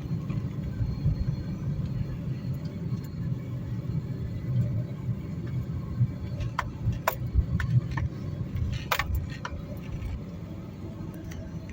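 Car driving, heard from inside the cabin: a steady low road and engine rumble, with a few sharp clicks or knocks in the middle.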